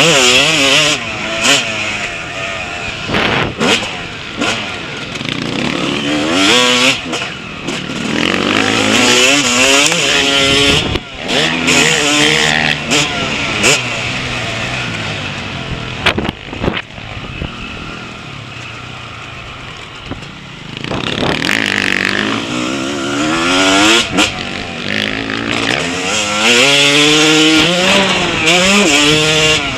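Motocross bike engine heard up close from the bike itself, revving up and dropping back again and again as it is accelerated and shut off around a dirt track, with wind rushing over the microphone. A quieter stretch at lower revs comes past the middle, before it pulls hard again.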